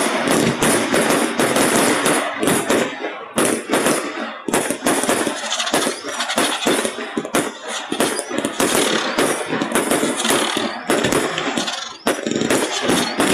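Fireworks display going off: a nearly continuous string of rapid bangs and crackles from bursting shells, heavily compressed by the phone's recording.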